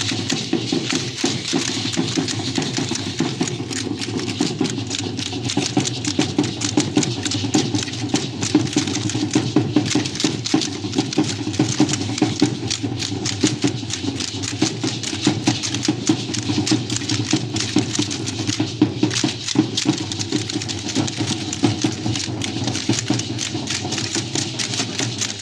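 Percussion for a traditional Mexican danza: drumming under a dense, fast, continuous clatter of sharp clicks.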